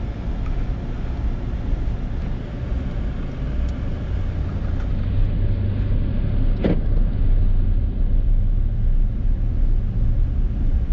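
Cabin noise of a car driving on a country road: steady engine and tyre rumble, growing a little louder about halfway through as it picks up speed on the straight. A brief tap sounds about two-thirds of the way through.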